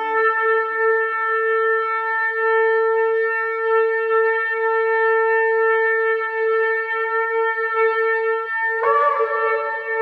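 Long Yemenite shofar blown in one long, steady held note, then jumping up to a higher note near the end.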